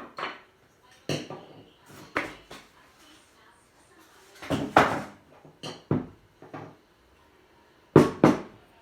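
Handling noise from unpacking an Oster blender: a series of separate knocks and clatters of its parts and packaging. Two of the loudest come close together near the end.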